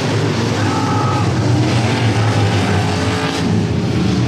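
Street stock race cars' engines running hard as the cars race around a dirt oval, a loud, steady engine noise.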